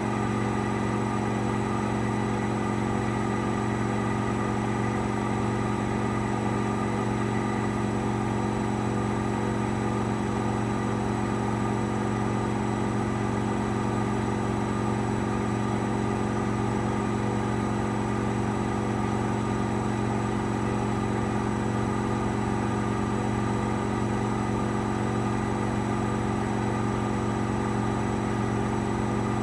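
AEG Lavamat 8000 Series front-loading washing machine in its final spin, the drum turning at a steady high speed. It gives a steady hum made of several constant tones, with no rise or fall in pitch.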